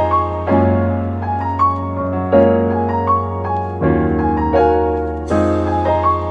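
Background piano music: sustained chords that change every second or two, with a light melody of single notes above them.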